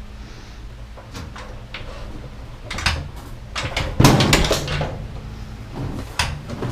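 Knocks and rattles of metal parts being handled as a washer/dryer combo is taken apart, loudest about four seconds in.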